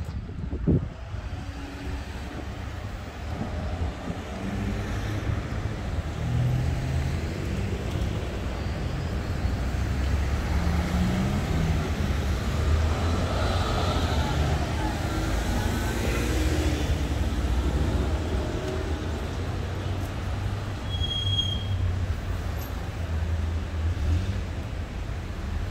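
City street traffic: cars running past on the road with a steady low rumble, swelling as a vehicle goes by midway.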